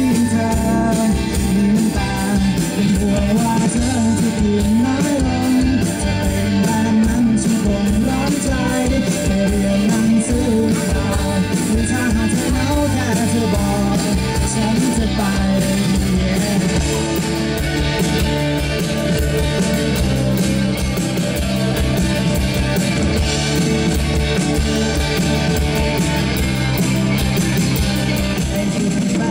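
Live rock band playing through stage speakers: electric guitars, bass guitar and drum kit, with a male singer singing into a microphone.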